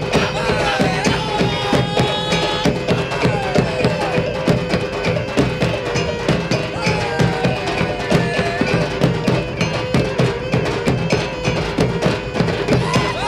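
Traditional Minangkabau ensemble music accompanying a Galombang dance. Dense, rapid drumming carries a wavering, gliding melody line over steady held tones.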